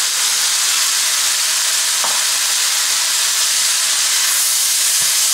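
Minced chicken and chopped onion sizzling in a hot frying pan while being stirred with a wooden spoon: a steady frying hiss, with a couple of faint taps.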